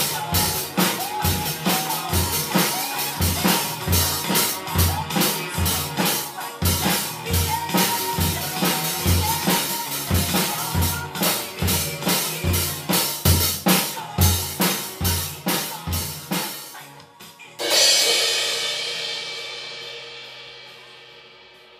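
Pearl drum kit played to a steady beat, bass drum and snare under cymbals, then a final cymbal crash near the end that is left to ring and slowly fade out.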